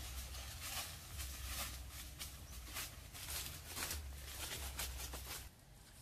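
Irregular rustling and brushing of leafy vegetation, with a low rumble underneath. Both drop away about five and a half seconds in.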